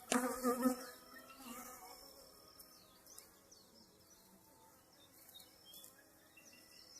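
Honey bees buzzing at an open top-bar hive: a loud buzz of a bee close by in the first second and a half, then a fainter hum of the colony.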